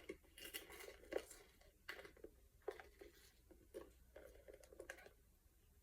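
Faint scattered clicks and crinkly rustles of small handling noises, about a dozen soft ticks spread over a few seconds.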